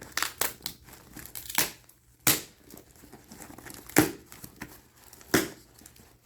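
Packing material crinkling and rustling by hand as a box is unpacked: a run of short crackly rustles, the loudest about two, four and five and a half seconds in.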